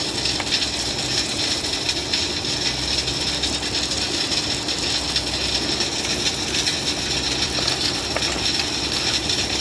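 A running machine: a steady engine hum under dense, continuous mechanical rattling.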